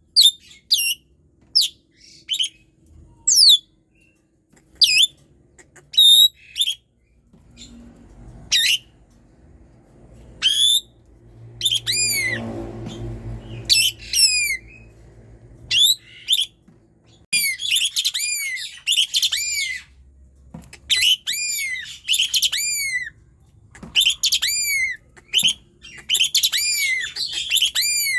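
Asian pied starling (jalak suren) singing loudly: sharp, high calls that sweep down in pitch, spaced apart at first, then from about two thirds of the way through a dense run of quick, arching notes. A faint low rumble sits under the song in the middle.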